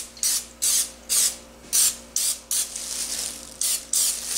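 Extra virgin olive oil cooking spray hissing in quick short spritzes, about two or three a second, with one longer spray a little past halfway.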